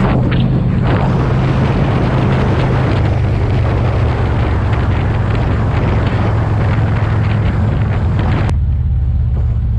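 Motorcycle engine running steadily at road speed, with heavy wind rush across the microphone. About 8.5 seconds in, the wind noise drops away suddenly, leaving the engine's low steady drone.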